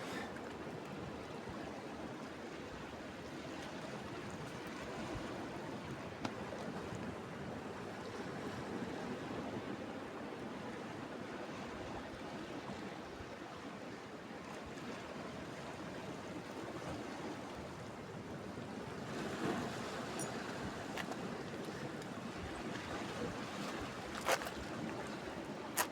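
Sea waves washing steadily against a rocky shore, with wind. Two short sharp knocks near the end.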